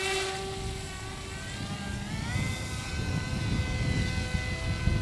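Electric RC plane's 2700KV brushless inrunner motor and small propeller whining at speed. The pitch steps up about two seconds in as the throttle is raised for the climb after the hand launch, then holds steady.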